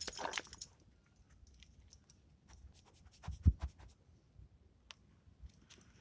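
A few footsteps on the road that stop within the first second, followed by scattered faint clicks and taps and one low thump about three and a half seconds in.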